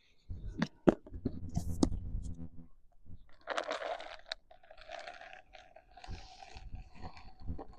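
Crunching and scraping of dry horse treats, with a few sharp clicks.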